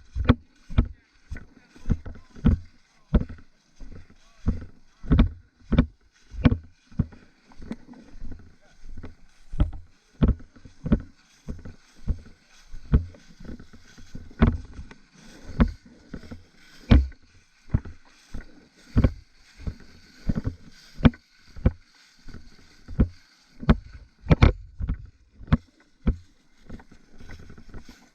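Footsteps of a person walking at a steady pace, heard as regular thuds about one and a half to two a second through a body-worn camera.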